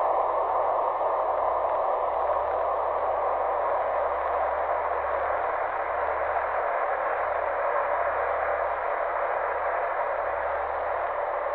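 Steady hiss like static, even and unchanging, with a low hum underneath.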